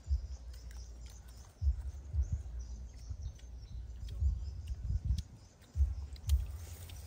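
Outdoor ambience: irregular low rumbles and thumps, with a few sharp clicks and faint high chirps.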